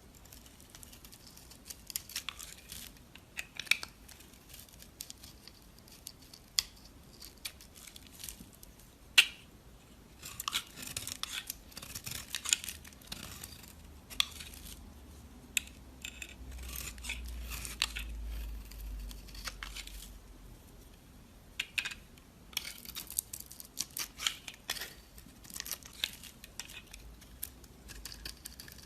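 Knife cutting and scraping dry soap: crisp crackling cuts and snaps that come in bursts with short pauses between them.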